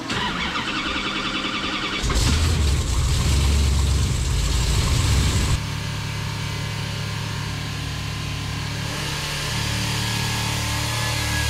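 Supercharged 454 Chevrolet big-block V8 running under load on an engine dyno, held at a steady speed around 4,000 to 4,500 rpm. At about five and a half seconds it turns abruptly quieter, as heard from the dyno control room through the glass.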